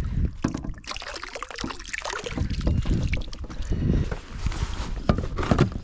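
Water splashing and sloshing around a kayak with irregular small knocks, and wind rumbling on the microphone.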